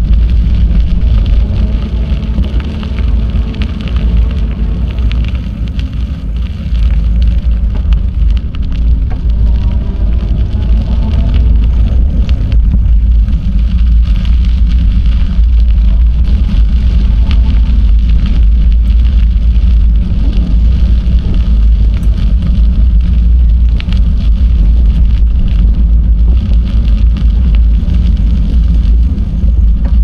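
Loud, steady low rumble of wind on the microphone of a moving bicycle, with rolling tyre noise from the ride.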